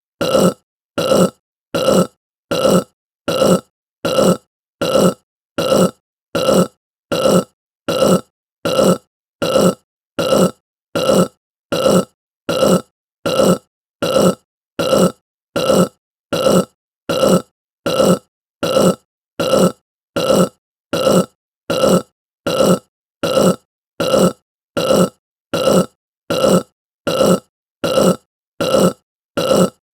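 A short human burp repeated over and over at an even pace, about three burps every two seconds, each one alike, with silence between them.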